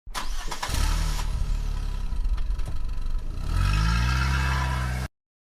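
Car engine sound starting up and running, then revving up with a rising pitch about three and a half seconds in; it cuts off suddenly.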